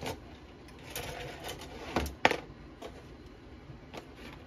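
Plastic model-kit parts and sprues being handled: a few scattered rustles and light clicks, with one sharp click a little past two seconds in.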